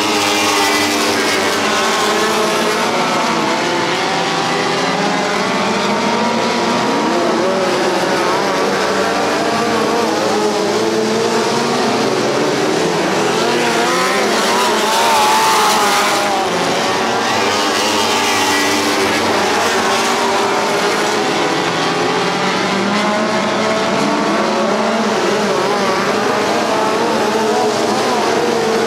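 Several DII midget race car engines running hard together on a dirt oval, their pitches overlapping and rising and falling as the cars go round. The sound swells to its loudest about halfway through as a car passes close.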